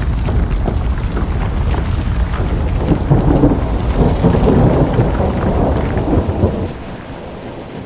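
Heavy downpour of rain and hail in a thunderstorm: a dense hiss of many small hits over a deep continuous rumble that eases near the end.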